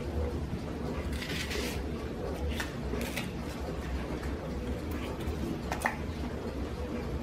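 Layers of a fresh leek being pulled apart and handled by hand, giving a few short crisp rustles and squeaks, with one sharp click about six seconds in. A low steady hum lies under it throughout.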